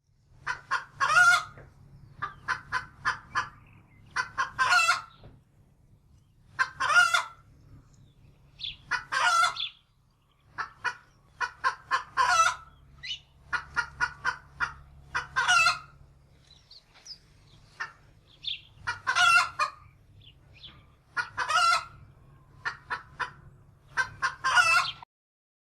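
Chicken clucking in runs of quick short clucks, each run ending in a louder, drawn-out call, repeated every two to three seconds. A faint low hum lies under it, and it all stops just before the end.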